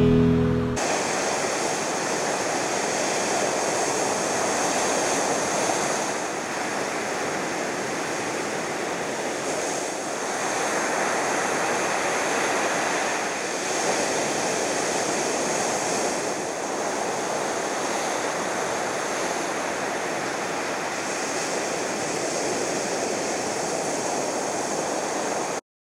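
Ocean surf, a steady rushing wash of waves with slow swells in loudness, cutting off suddenly near the end.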